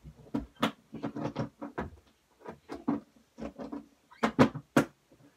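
Things being handled and put away while tidying a bedroom: an irregular run of light knocks, bumps and rattles, with three sharper knocks near the end.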